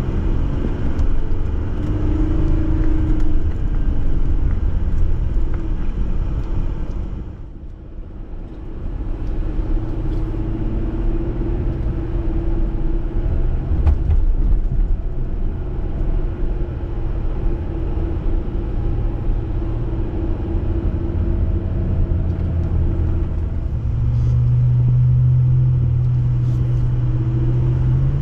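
Jeep engine running as it drives off-road, steady apart from a brief drop in level about a quarter of the way through, with a stronger, steady low hum setting in near the end.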